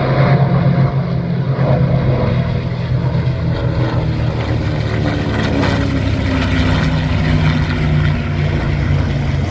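Several piston-engined propeller aircraft flying past in formation, a loud steady drone of engines, their pitch sliding slightly lower about halfway through as they pass.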